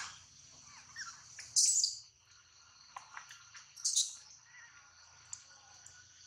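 Wild birds chirping: two short, loud, high calls about one and a half and four seconds in, with fainter chirps between them, over a steady high-pitched background chorus.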